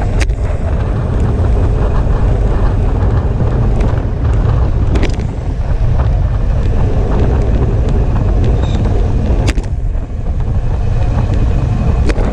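Wind buffeting the microphone of a camera on a road bike moving at about 40 to 45 km/h: a loud, steady low rumble, with a few sharp clicks.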